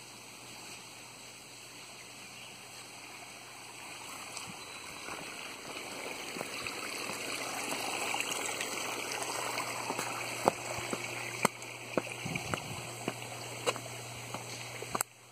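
Running water, a steady rush that grows louder over the first half. From about ten seconds in, a string of sharp clicks and knocks sits on top of it.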